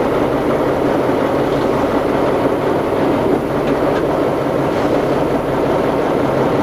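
Tatra 813 Kolos's air-cooled V12 diesel engine running steadily under way, heard from inside the cab as the truck crawls down a steep dirt slope.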